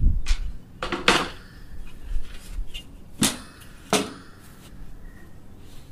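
Wooden-framed queen excluders knocking against the wooden hive boxes and roof as they are lifted off and set down: a few sharp wooden knocks, the loudest about a second in and two more around three and four seconds in.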